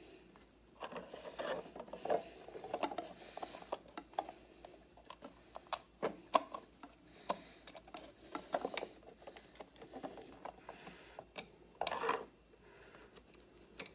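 Irregular small clicks, taps and scrapes of hard 3D-printed PETG birdhouse parts being fitted together and small M3 screws being handled and started.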